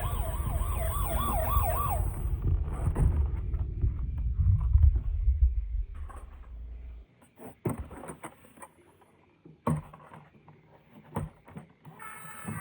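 Toy emergency vehicle's electronic siren wailing, its pitch swinging quickly up and down about three times a second, for the first two seconds. Under it a louder low rumble runs on until about seven seconds in, then a few sharp clicks and knocks.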